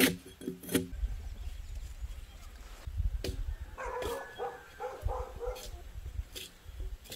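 Sharp knocks of an axe chopping logs, a second or more apart. Short animal calls repeat in the first second, and chickens call in a broken burst around the middle.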